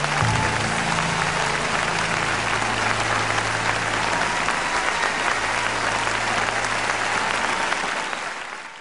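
Large audience applauding steadily after a sung ballad ends, fading out near the end.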